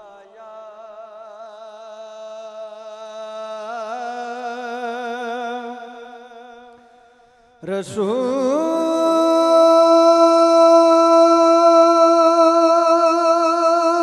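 Male naat singer holding long, wavering vowel notes through a microphone. One note fades out about halfway through, and after a brief pause a new, louder note starts and is held.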